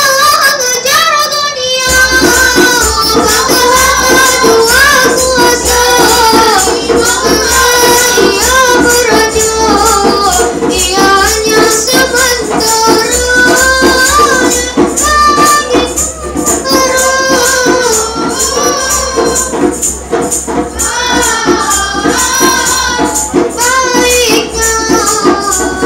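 Boys' nasyid group singing together through microphones, with a steady rhythmic percussion accompaniment that comes in about two seconds in.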